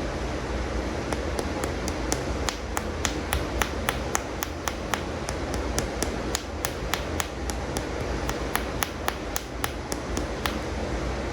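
Quick, light taps and clicks on plastic animal toy figures, irregular at about three a second, over a steady background hiss.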